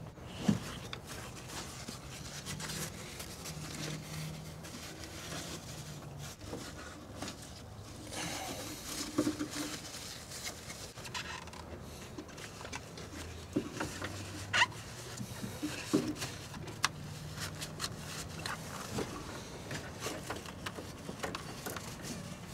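Scattered light clicks and knocks of hands handling plastic connectors and fuel-line fittings in a car's engine bay, with paper napkins rustling, over a faint low hum that comes and goes.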